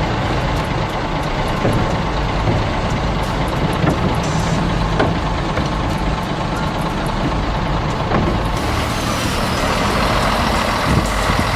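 Heavy diesel machinery running steadily while a bulldozer is loaded onto a truck, with a few short clanks.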